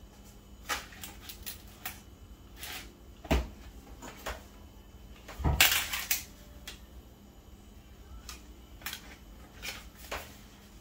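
Kitchen knife tapping and scraping against the rim of a disposable aluminum foil pan while excess puff pastry dough is cut away: scattered sharp clicks and knocks, the loudest about three seconds in and a cluster near the middle.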